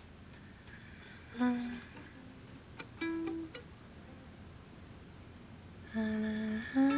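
Ukulele played softly with a woman humming a slow melody along with it, a few notes at a time with pauses between, the tune picking up near the end.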